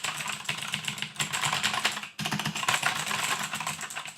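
Rapid clicking of keys pressed in quick succession on a Hyper Clack mechanical keyboard with clicky blue switches, with a brief pause a little after two seconds in.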